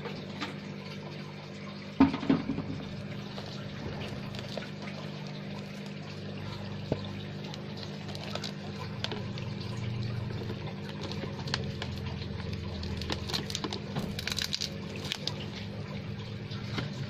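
Steady running, splashing water with a low steady hum, from the aquarium's water flow and pump. Over it a taped paper parcel is handled against a plastic box lid: one sharp knock about two seconds in, then light rustles and small taps.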